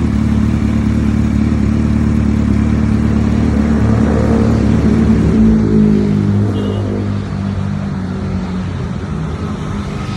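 Kawasaki H2 motorcycle engine running, rising in pitch and loudness toward the middle, then dropping lower and quieter for the rest.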